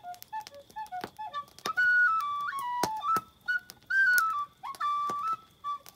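A small end-blown whistle playing a simple folk melody, one note at a time, in short phrases that step mostly downward. Sharp clicks are scattered between the notes.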